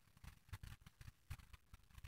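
Near silence with faint handling noise: a scatter of soft, irregular taps and clicks from hands moving and holding things up to the camera.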